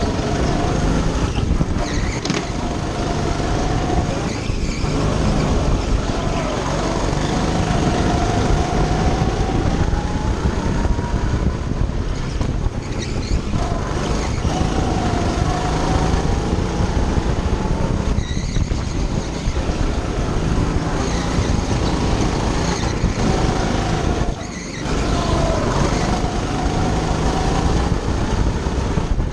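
Go-kart engine heard from on board, over a steady loud rush of noise; its pitch climbs and falls again every few seconds as the kart speeds up along the straights and lifts off for the corners, with a brief drop about 24 seconds in.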